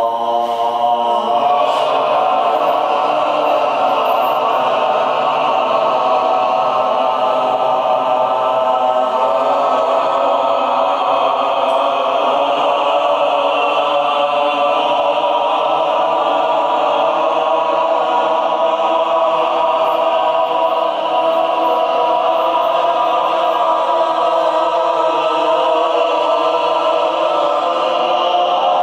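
A group of voices holding a dense chord of long, steady tones in a chant-like drone, sung without a break.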